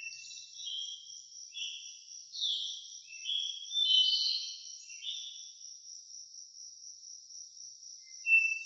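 A songbird singing a phrase of short, varied whistled notes for about five seconds, then a single clear note near the end, over a steady high-pitched insect trill that pulses evenly.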